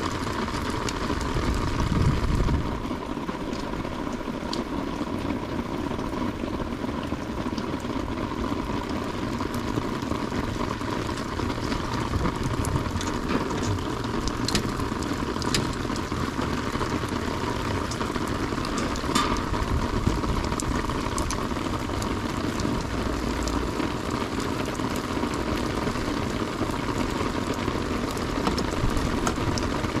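Steady rain falling, an even hiss with scattered sharp drop ticks close by.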